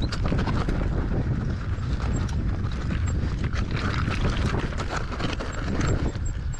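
An electric mountain bike rolling over a rocky mountain path: rapid, irregular knocking and rattling of tyres and frame on stones over a steady low rumble.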